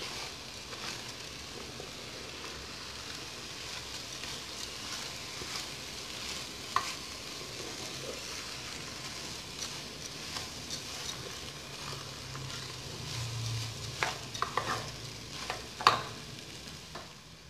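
Rice and chopped vegetables sizzling in a hot metal pot while being stirred with a plastic spoon: the rice being sautéed in the fat before water goes in. There is a steady frying hiss with a few sharp knocks and scrapes of the spoon against the pot, most of them near the end.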